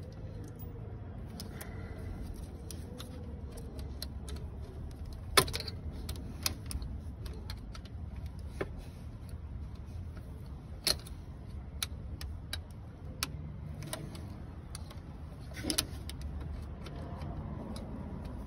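Metal hand tools clinking and clicking against parts in a car's engine bay: a scatter of sharp, irregular clicks, the loudest about five seconds in, over a low steady rumble.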